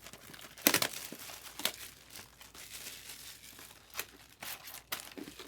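Foil trading-card pack wrappers crinkling and tearing as packs are opened and cards handled, with irregular sharp crackles, the loudest about three-quarters of a second in.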